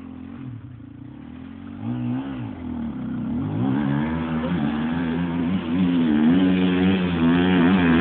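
Off-road motorcycle engine revving up and easing off again and again as the rider works the throttle up a steep dirt hill climb, growing louder as it comes closer.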